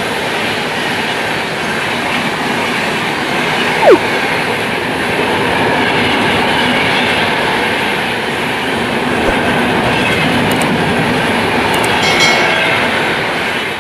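Rajdhani Express passenger coaches running past at speed: a steady rumble and rattle of wheels on the rails. About four seconds in there is one sharp, brief sound that falls in pitch, the loudest moment.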